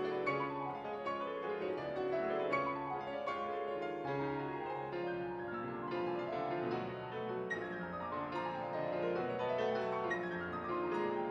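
Two grand pianos playing classical music together in a dense stream of quick notes, one of them a Steinway concert grand.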